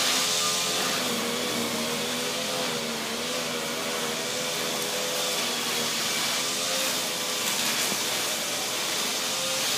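A steady whirring noise with a low hum that wavers slightly in pitch.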